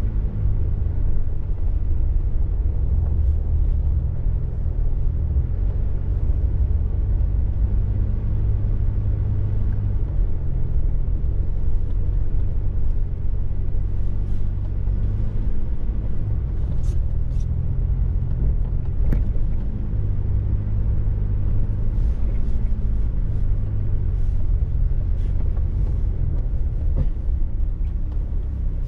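A car driving: a steady low engine and road rumble whose pitch shifts slowly.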